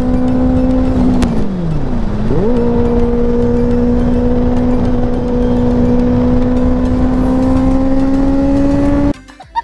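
Kawasaki ZX-10R's inline-four engine running at high revs on the move, with wind rush. About a second in the revs fall away as the throttle is rolled off, then snap back up a second later and climb slowly from there; the sound cuts off abruptly near the end.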